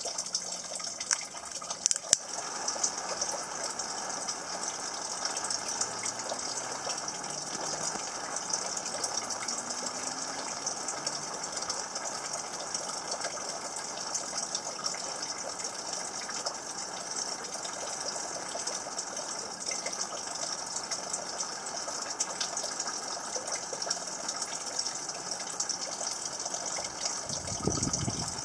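A heating tool playing on a fine woven wire mesh makes a steady rushing hiss. A few light clicks come about two seconds in, and some low thumps near the end.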